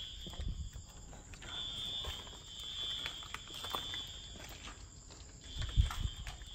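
Footsteps and scuffs on a debris-strewn concrete floor, with a cluster of heavier thumps near the end. Under them, a high, steady shrill tone comes and goes, sounding for a couple of seconds at a time.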